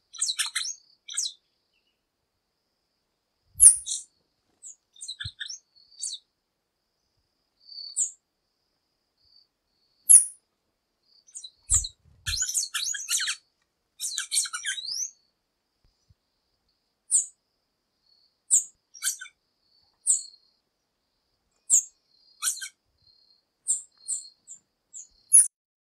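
Blue dacnis calling: short, very high-pitched notes at irregular intervals of a second or two, with a brief run of varied twittering about twelve seconds in.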